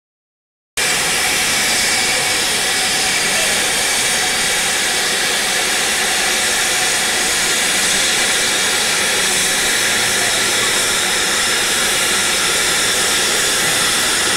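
Steady, loud hiss of steam escaping from standing steam tank locomotives, Polish TKh 4015 and BR Standard 80078, starting abruptly about a second in.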